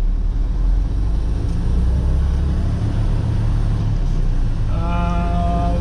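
Semi-truck diesel engine running as the rig drives slowly, heard from inside the cab as a steady low rumble. About three quarters of the way in, a steady pitched tone with several overtones sounds over it for about a second and a half.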